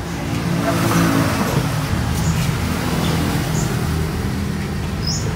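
A motor running steadily with a low hum that swells about a second in.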